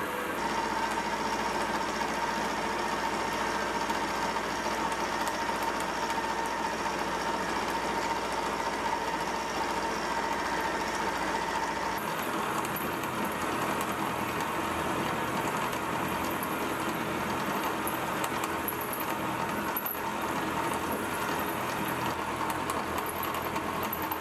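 Vertical milling machine running an end mill through mild steel: the motor and spindle run steadily under the noise of the cut. About halfway through the sound shifts, and the low hum drops away.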